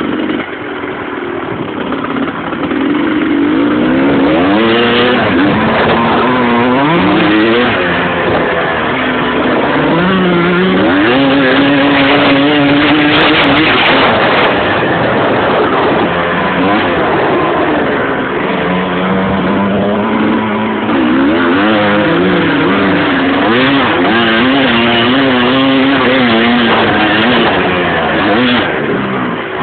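Motocross bike engine running hard under a ridden load, its pitch climbing and falling over and over as the throttle is opened and eased off.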